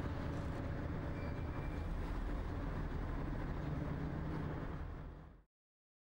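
Steady engine and road rumble inside a moving city bus, fading out about five seconds in.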